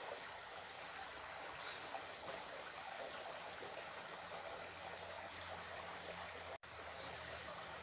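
Steady, fairly faint rush of a small mountain stream running over rocks, with a momentary dropout near the end.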